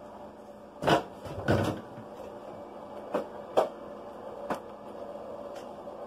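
A few separate knocks and clicks of a bowl against a blender jar as sugar is tipped into the jar, the loudest about a second in, then the blender lid being set on the jar near the end.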